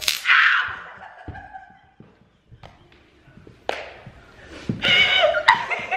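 Handheld stun gun crackling in a short burst at the start, with a cry from the person shocked; a thud follows about a second later, and laughter builds near the end.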